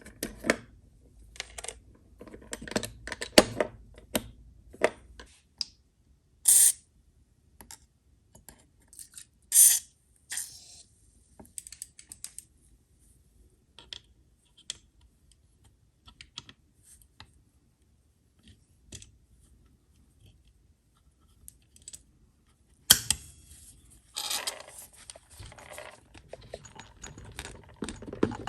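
Clicks, taps and metallic clinks of hand tools and small parts as a headlight motor is dismantled for a rebuild, with two short hisses about six and ten seconds in and a busier stretch of handling near the end.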